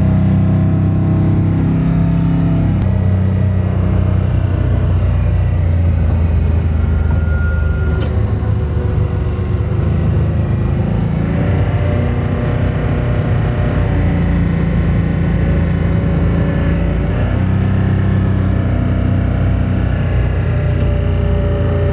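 V8 engine of a caged off-road prerunner truck, heard from inside the cab while driving at road speed. Its pitch shifts up and down a few times as it pulls along.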